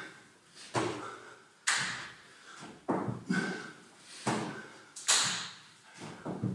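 Burpees on a rubber gym floor: bare hands and feet thudding down and slapping the floor, with a hand clap behind the head at the top of each jump. The sharp knocks come about once a second, unevenly.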